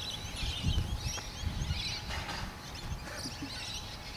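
Birds chirping and twittering, many short calls overlapping, over a steady low rumble.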